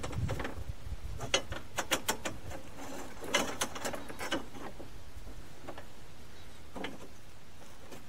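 Steel band-saw blade being worked onto the band wheels and through the guides of a Norwood HD36 portable band sawmill: scattered metallic clicks and rattles in clusters through the first half, then one more click near the end.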